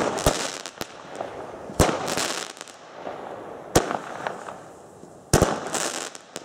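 Weco Alligator 15-shot firework battery firing: a loud sharp bang roughly every two seconds, with a quick double bang a little past five seconds in, each followed by a spell of crackling hiss as the shots burst in the sky.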